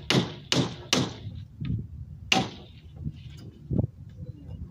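Hammer driving nails into the wooden panels of a speaker box: three quick sharp strikes in the first second, one more about two seconds in, then a duller thud.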